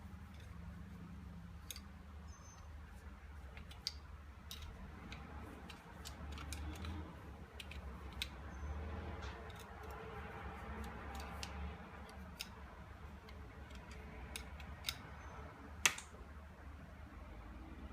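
Scattered light clicks and taps of small pistol parts being handled, with one sharper click near the end, over a low steady hum.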